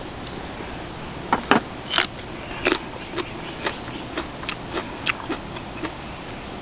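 Crisp bites into a raw cucumber chili pepper: a few loud crunches, then steady crunchy chewing at about three crunches a second.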